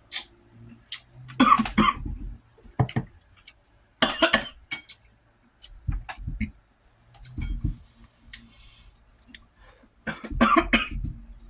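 A man coughing in a string of harsh coughs and throat-clearing. The cause is cayenne pepper powder inhaled while slurping spicy ramen broth, which he says can go up the wrong pipe.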